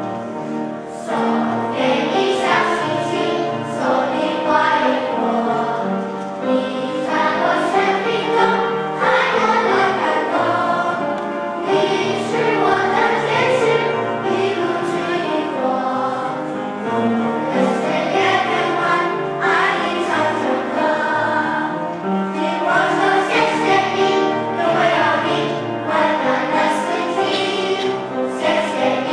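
A children's choir singing a song together, with sustained, changing notes throughout.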